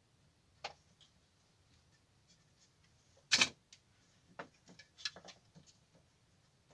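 Light clicks and taps of a small plastic scale-model truck cab (WPL B-24 GAZ-66) being handled while clear window glazing is pressed in, with one sharper click about halfway through and a quick run of lighter taps just after.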